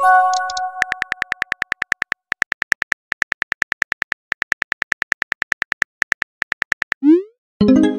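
Texting-app sound effects: a short ringing chime at the start, then rapid, even keyboard clicks, about five or six a second, as a message is typed. Near the end the clicks stop, a short rising pop sounds, and another chime rings.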